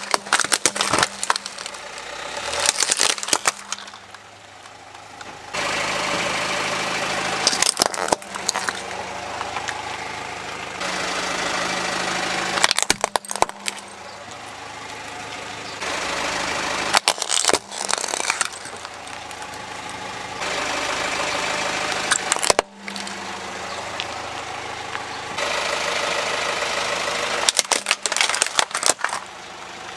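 Plastic toys cracking and crunching as a car tyre rolls slowly over them, in short bursts every few seconds, over the car's engine running steadily.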